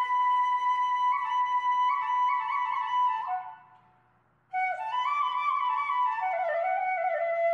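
Background flute music playing a slow melody; it fades out a little after three seconds in, leaving about a second of near silence, then starts again abruptly.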